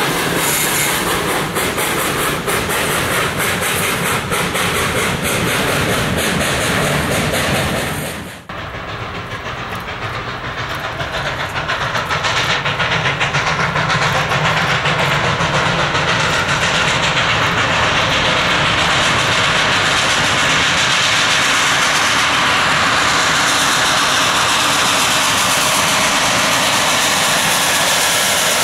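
Freight cars rolling past with steady wheel clatter on the rails. After a cut about eight seconds in, Baldwin 2-8-0 Consolidation steam locomotive No. 734 is working steam: a rapid chuffing exhaust with hiss that grows steadily louder as it approaches.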